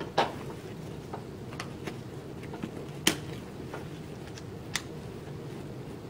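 Car seat harness being handled: scattered clicks from the plastic chest clip and hardware, and rustling of the webbing straps. Three of the clicks are sharper: about a quarter second in, around three seconds in and near five seconds in. Under them runs a steady low room hum.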